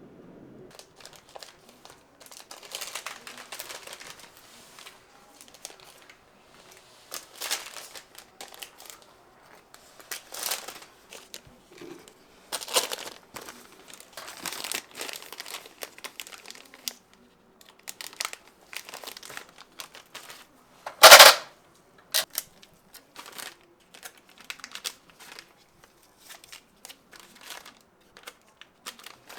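Crinkling and rustling of wrapping being handled in irregular bursts, with one loud sharp crackle about twenty-one seconds in.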